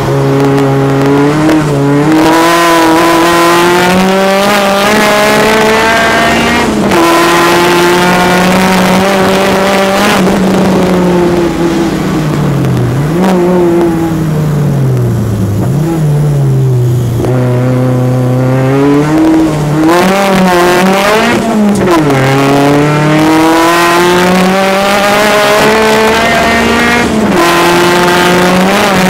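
Turbocharged Peugeot 205 four-cylinder engine heard from inside the car under hard acceleration, its pitch climbing and dropping sharply at each upshift. About halfway through the revs fall and blip as it slows and changes down, then it pulls up through the gears again.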